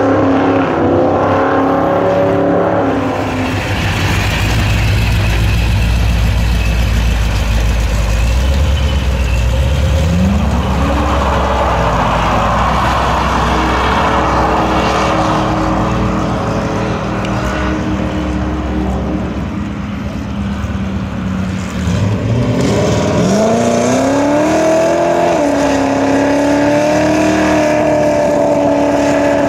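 American muscle car engines revving hard. The revs fall at the start, climb sharply about a third of the way in, and climb sharply again later, when a red classic coupe's engine is held at high revs, wavering slightly, through a tyre-smoking burnout.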